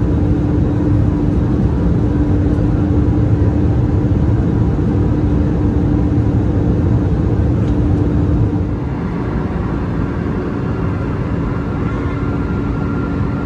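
Airbus A320neo cabin noise in flight at a window seat over the wing: a steady engine and airflow drone with a constant hum. About two thirds of the way through it drops slightly in level.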